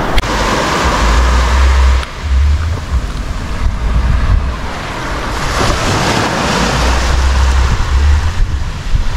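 Surf washing onto a sandy, rocky shore, with wind buffeting the microphone in gusts.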